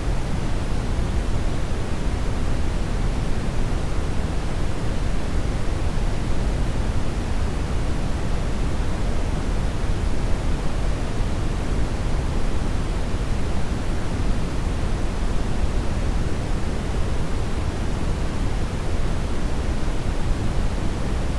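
Steady generated noise, an even rushing hiss that never changes, heaviest in the bass and thinning toward the treble.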